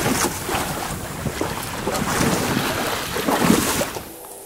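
Wind noise on the microphone over choppy sea, with waves splashing against a small drifting boat's hull; it drops away suddenly about four seconds in.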